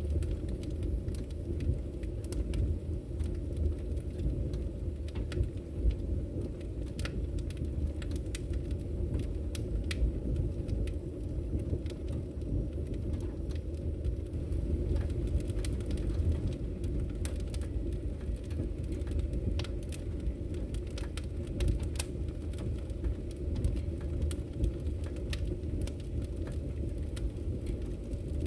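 Wood fire burning in a fireplace: a steady low rumble of the flames under frequent, irregular sharp crackles and pops.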